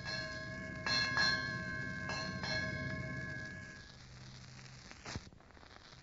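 Ship's bell struck in pairs, two quick double strokes, each ringing on and fading away. A low hum of old disc recording lies under it, and there is a short click near the end.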